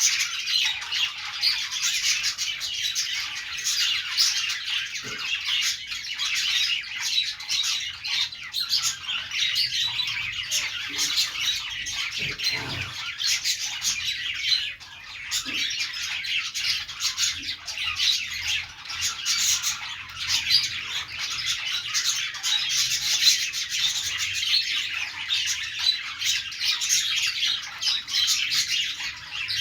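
Pet budgerigars (budgies) chattering continuously, a dense run of overlapping chirps, warbles and squawks.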